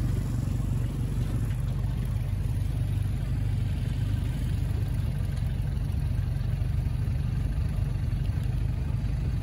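A motor vehicle's engine idling steadily close by: a low, even rumble.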